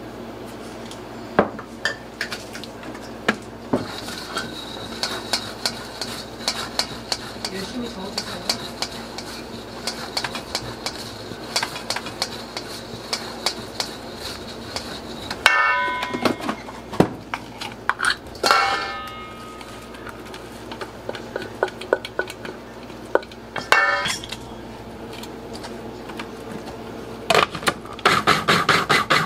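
A utensil scraping, tapping and clinking against a stainless steel mixing bowl as crumbled boiled egg yolk is stirred, with sharp taps throughout and a few louder ringing metal knocks around the middle. Near the end a small electric food processor starts up, running with a fast, even pulse.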